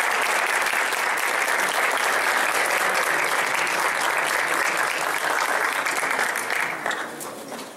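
Audience applauding steadily, thanking the speakers at the close of a talk; the clapping dies away near the end.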